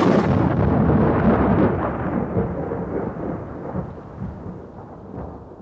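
Thunder rumbling, loud at first and dying away slowly over several seconds.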